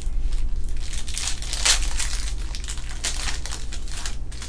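2021 Panini Chronicles Baseball pack wrappers being torn open and crinkled by hand: a run of crackly rustles, loudest a little under two seconds in and again around three seconds.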